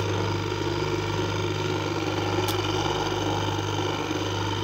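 Washing machine motor running steadily with an even electrical hum, set by the selector to turn in one direction only.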